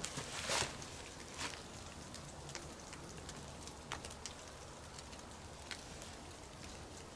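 Small wood campfire crackling with a soft hiss and a few sharp pops at irregular times, the loudest about half a second in.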